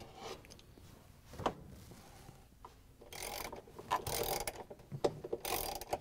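A 3/8-inch ratchet with socket and extension clicking as it drives the bolts into a washing machine's motor cover. A couple of single knocks come in the first second and a half, then two runs of rapid clicking, from about three seconds in and again near the end.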